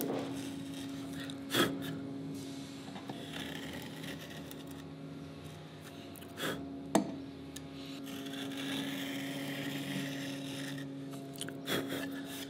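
Router plane cutting across the bottom of a shallow hand-cut dado in a board: a soft scraping as the blade severs the wood fibres and pops the waste off in chips, with a few sharp clicks about a second and a half in, twice around six to seven seconds in, and near the end.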